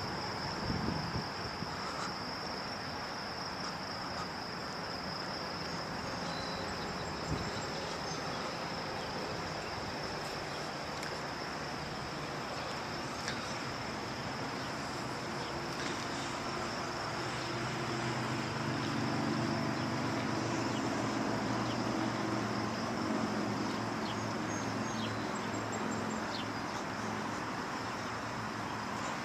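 Outdoor ambience: insects trilling in a steady high buzz, over a low background of wind and distant traffic. About halfway through, a low engine hum builds, holds for several seconds and fades near the end.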